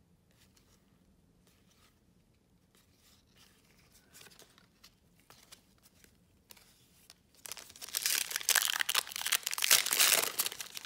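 Trading cards being handled with faint clicks, then a foil 2020 Topps Star Wars Holocron card pack being torn open, its wrapper tearing and crinkling loudly for about three seconds near the end.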